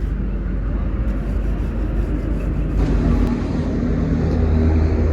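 An engine running steadily, a low rumble that grows louder and fuller about three seconds in.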